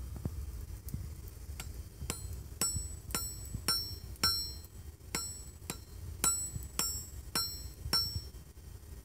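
Blacksmith's hammer striking a red-hot steel cleaver blade on an anvil, hand-forging it: a steady run of blows about two a second, starting about a second and a half in, each with a bright metallic ring from the anvil.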